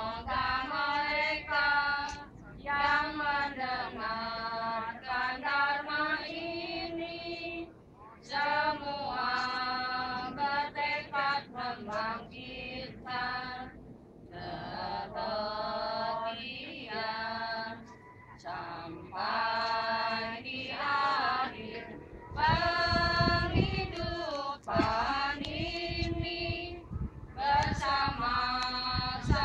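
A group of mourners singing a song together, women's voices prominent, in phrases with short breaths between them. A low rumble on the microphone about two thirds of the way in.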